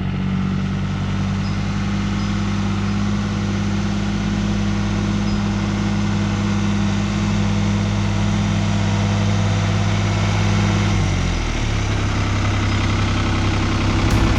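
Tractor engine running steadily nearby; about 11 seconds in its note drops and changes as the engine speed or load shifts.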